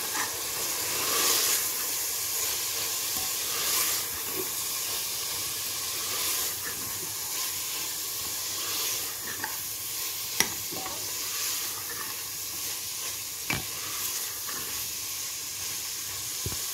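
Minced meat and liver frying in mustard oil in an aluminium pressure cooker, with a steady sizzle as a steel spoon stirs and scrapes the spiced mixture. A few clicks of the spoon against the pot stand out.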